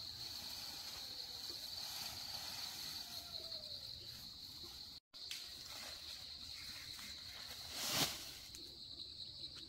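Insects droning steadily in one even, high pitch, with a brief loud rustle of leaves and branches about eight seconds in.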